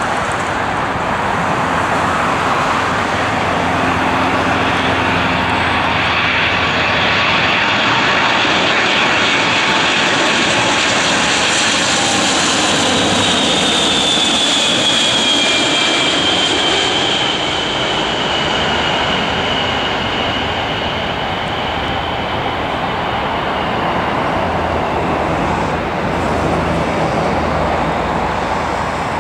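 Boeing 747-400's four Rolls-Royce RB211 turbofan engines on landing approach, a loud steady jet roar as the airliner passes low overhead. A high engine whine falls in pitch from about halfway through as it goes by.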